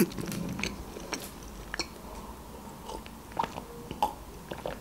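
Close-miked chewing of food, with scattered short wet mouth clicks. Near the end come sips from a glass of water.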